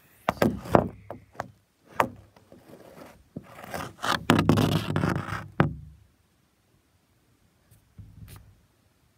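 Handling noise on the recording phone as it is picked up and moved: a few sharp knocks, then a loud stretch of scraping and rubbing against the microphone, and a softer bump near the end.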